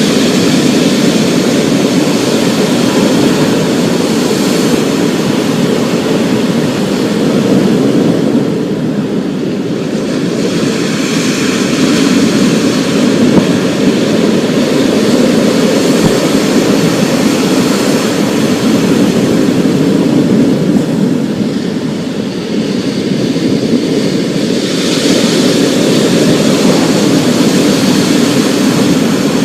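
Rainstorm ambience: a steady, dense roar of heavy rain and storm noise, swelling and easing slowly over several seconds.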